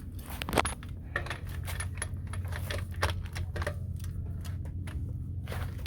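Half-inch drive click-type torque wrench ratcheting lug nuts down on an RV wheel, a run of irregular sharp clicks over a steady low hum: the first 30 foot-pound pass of the tightening.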